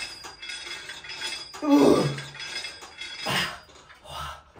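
Weight stack of a seated leg curl machine clinking with each rep of a set taken to failure. About two seconds in there is a strained groan from the lifter, falling in pitch, and a hard breath follows a second later.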